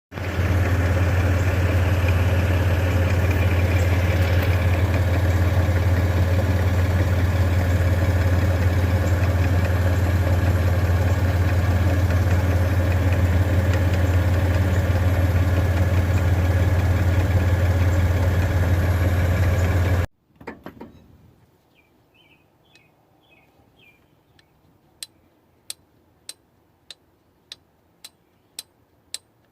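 1997 Toyota 4Runner heard from inside while driving: a loud, very steady low drone and buzz, the rear buzzing the owner heard at 60 to 70 mph. It cuts off suddenly about two-thirds of the way in, leaving near silence with faint clicks about twice a second.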